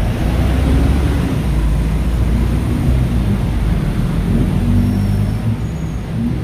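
Steady low rumble of road traffic, with vehicle engines running and passing.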